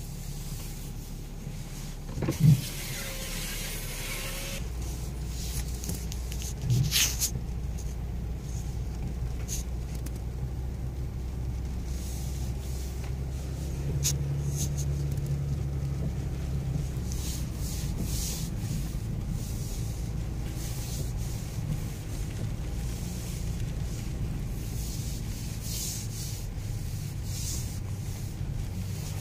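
Cabin noise of a BMW X6 driving slowly over a muddy off-road track: a steady low engine and tyre rumble that deepens a few seconds in, with a couple of sharp knocks in the first seven seconds.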